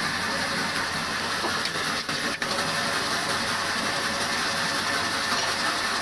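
Sawmill band saw running steadily, its blade cutting through a corrugated cellulose cooling pad for a room air cooler: an even, noisy machine whir, with a couple of short clicks about two seconds in.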